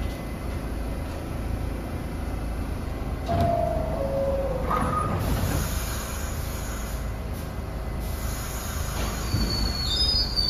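NYC subway train standing at the platform with a steady low rumble. About three seconds in, a two-note falling door chime sounds as the doors close, followed by a hiss of air. Near the end a thin high wheel squeal begins as the train starts to pull out.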